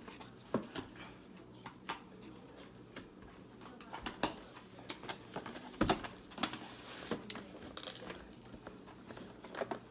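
Cardboard packaging of a Blue Yeti microphone being handled: the box flaps are opened and the inner box is slid out, giving scattered rustles and light taps of cardboard, with a sharper knock about six seconds in.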